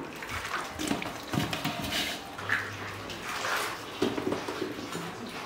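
Slotted metal skimmer lifting cooked pork-skin rolls out of a wok of hot water: water splashing and dripping back into the wok, with irregular clinks of metal against the wok.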